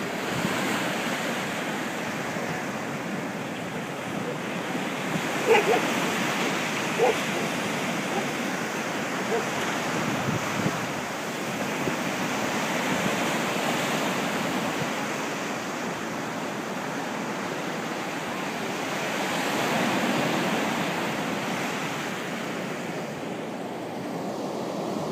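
Sea surf: waves breaking and washing up a sandy shore in a steady rush that swells and eases every several seconds. Three short, sharp calls stand out between about five and ten seconds in.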